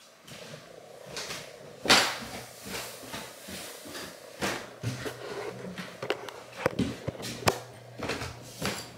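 Handheld camera handling noise and footsteps: a run of knocks and rustles, the loudest knock about two seconds in.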